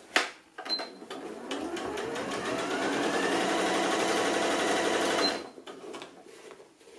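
Computerized sewing machine stitching. The motor winds up in pitch over about two seconds, runs steadily at speed, then stops a little over five seconds in. A short high beep sounds as it starts and again just before it stops.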